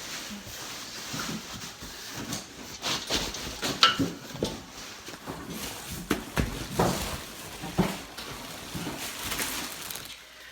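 Parts of a tile-saw stand being unpacked from their box: packaging rustling, with irregular clinks and knocks of metal pieces, the loudest about four seconds in.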